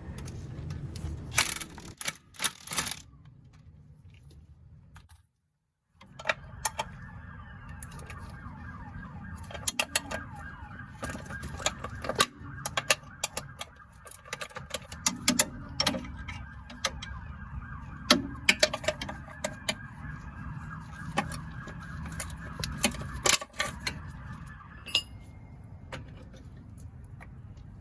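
Metal tools clinking and clicking against the car's suspension parts, over a steady high whine that runs for most of the time and stops about 25 seconds in.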